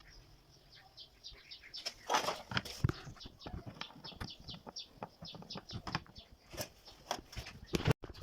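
Hand tools working at a stuck washing machine screw: a run of quick clicks, about four to five a second, with a few louder knocks about two to three seconds in.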